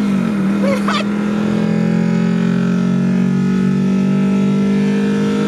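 VAZ 2101's swapped-in Nissan Silvia engine at full throttle, heard from inside the cabin. Its note settles right after an upshift at the start, then holds steady and loud as the car pulls hard through the gear.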